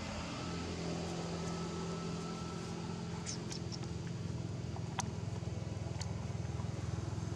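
An engine running steadily with a low, even hum, with a few short clicks about three, five and six seconds in.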